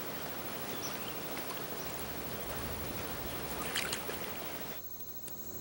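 Water sloshing and swishing as a person wades chest-deep through a pond thick with floating vegetation. Near the end it cuts abruptly to quieter indoor room tone with a low steady hum.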